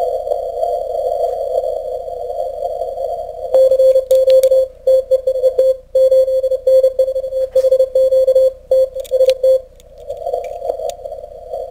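Morse code (CW) on the 40-metre ham band heard from a Kenwood R-1000 shortwave receiver through a Timewave DSP-9+ audio filter set to a 200 Hz passband: band noise squeezed into a narrow hiss, then a single steady tone keyed on and off in Morse for about six seconds from about three and a half seconds in, before the narrow hiss returns.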